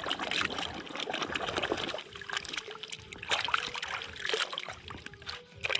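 Water trickling and splashing irregularly as toys are washed by hand.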